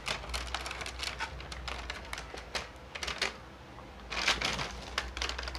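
Hands opening the retail box of an action camera: a dense patter of quick clicks and plastic packaging crinkling, with louder flurries near the start and about four seconds in.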